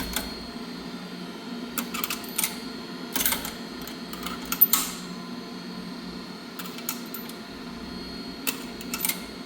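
Scattered sharp clicks and clacks at uneven times from a coin-operated dryer being worked by hand, its coin slot and controls being tried, over a steady low hum.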